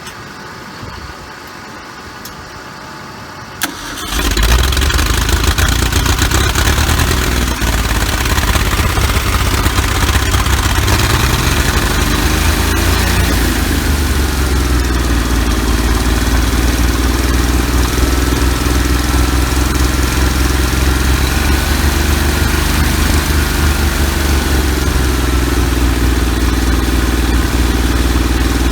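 An old gasoline engine on a sawmill catches about four seconds in and keeps running steadily, its speed sagging and picking up again a few times. It is running again after a clogged carburettor needle and seat were cleaned out and its stuck engine freed.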